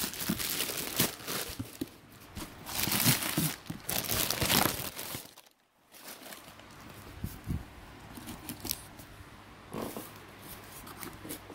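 Thin black plastic bag wrapping crinkling and rustling as it is handled and pulled open, with sharp tearing bursts in the first half. There is a brief silence about halfway, then quieter rustling.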